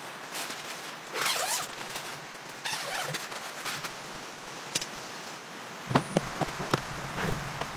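A tent zipper pulled in a few short rasps over a steady background hiss, then a quick series of clicks and knocks as a plastic storage box is handled about six seconds in.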